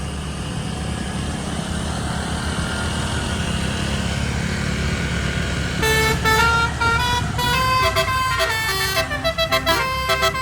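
Bus engine running steadily, then about six seconds in an 18-trumpet telolet air horn starts playing a quick melody of changing notes over it.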